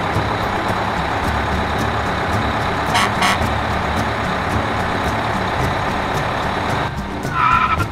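Truck engine sound effect running steadily. Two short sharp bursts come about three seconds in, and a brief pitched sound plays near the end.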